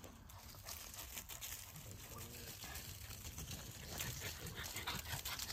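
Faint, scattered crunching and rustling of dry fallen leaves as French bulldog puppies run about through them.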